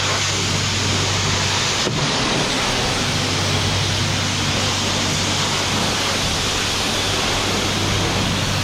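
Pressure washer spraying a jet of water onto an electric bike: a steady hiss of spray with a steady low hum underneath.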